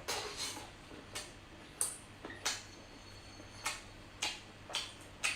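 Short, sharp clicks and sucks of someone eating spicy sea snails out of their shells, coming irregularly about twice a second.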